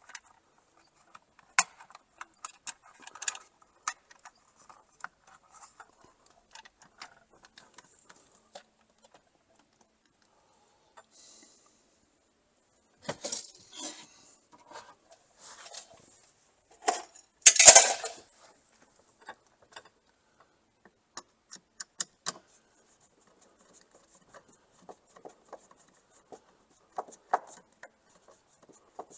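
A 30-amp TT-30R receptacle being worked into its electrical box by hand, with wires and tools: scattered clicks and small metal clinks and rattles. A louder clatter comes about 17 seconds in.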